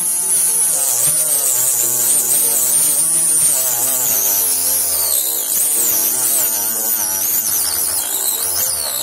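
Mini rotary grinder with a thin cut-off disc running and sawing into wood: a steady motor buzz with a high whine that wavers in pitch as the disc loads up in the cut.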